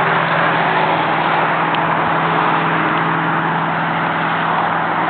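Highway traffic noise: a steady, loud wash of tyre and engine noise from passing vehicles, with a low engine hum under it.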